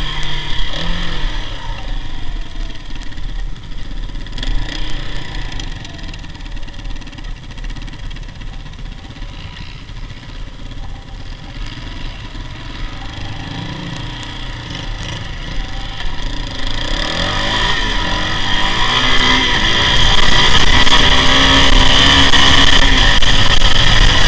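Sport quad (ATV) engine heard from the rider's helmet camera, easing off in the middle and then revving up again about two-thirds of the way through, loudest near the end. Wind buffets the microphone underneath.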